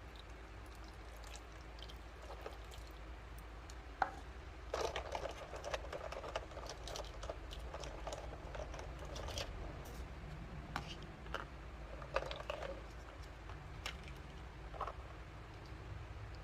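Small plastic toy kitchen pieces handled by hand: a sharp click about four seconds in, then a run of light clicks, taps and rustles for several seconds, thinning out toward the end.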